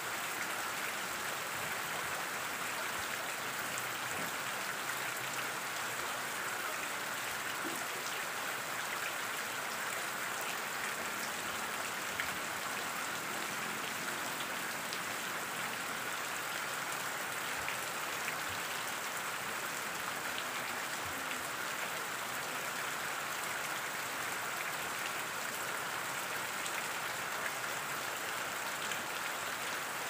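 Rain falling into a muddy puddle, with a thin stream of water splashing into its middle. The splashing and pattering go on steadily, with many small drop ticks.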